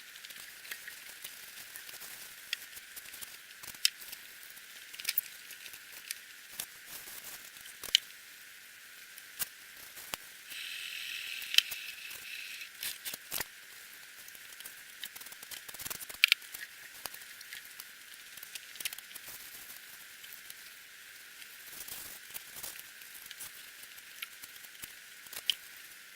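Hand-cleaning packing grease off a bench mill: rags and paper rustling and crinkling, with scattered sharp clicks and light taps of metal parts. A brief hiss, about two seconds long, comes about ten seconds in.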